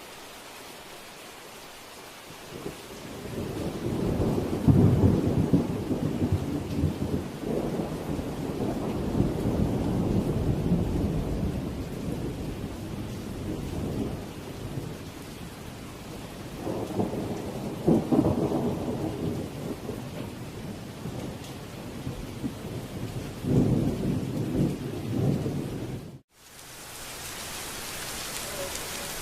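Steady rain with rolling thunder over it: long low rumbles build a few seconds in, come again past the middle and once more near the end. The sound cuts out abruptly for an instant near the end, then rain alone continues.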